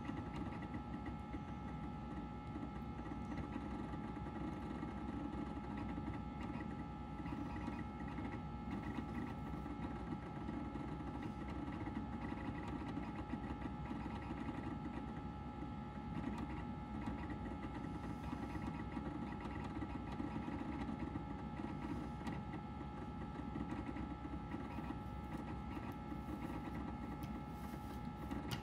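Macintosh SE running during boot: a steady whir and hum from its fan and disk drive, with continuous drive chatter as the startup extensions load.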